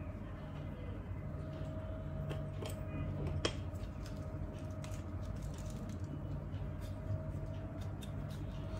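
Faint clicks and light handling of a camera body, lens and adapter as they are turned and fitted, three small clicks a little over two to three seconds in. A steady low hum of room tone runs underneath.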